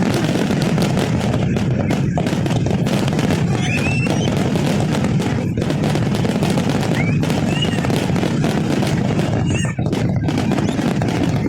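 Fireworks display: a continuous barrage of rapid bangs and crackles over dense background noise, with a few short whistles.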